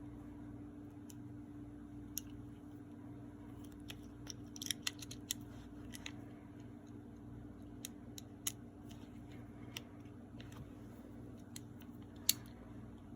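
Small metal pistol parts clicking and tapping as an Erma LA22 is reassembled by hand: scattered light clicks, a quick cluster about four to five seconds in and one sharper click near the end, over a steady low hum.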